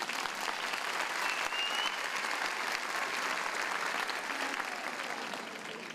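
Large audience applauding, dense clapping that fades away near the end, with one short high whistle about a second and a half in.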